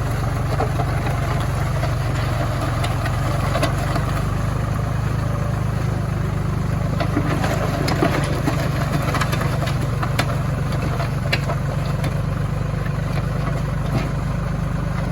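Tractor engine running steadily, with scattered short clicks and knocks over the engine hum.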